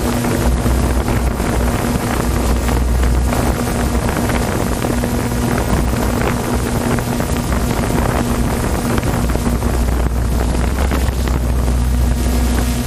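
Watercraft engine running steadily at an unchanging pitch, with wind buffeting the microphone.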